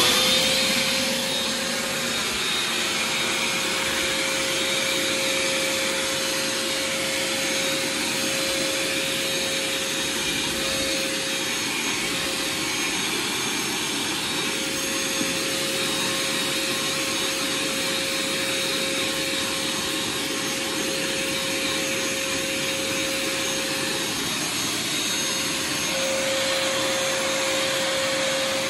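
Mini shop vac switched on: its motor spins up at the very start, then runs steadily with a steady whine as it sucks through a stair tool held on the carpet.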